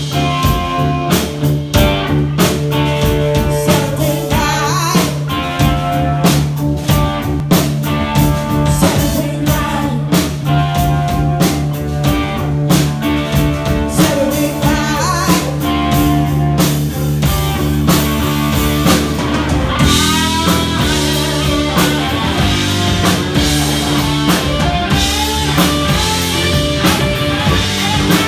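Live rock band playing loud: drum kit, bass guitar and electric guitar, with a woman singing. About twenty seconds in the sound brightens and the electric guitar plays a lead line with bent notes.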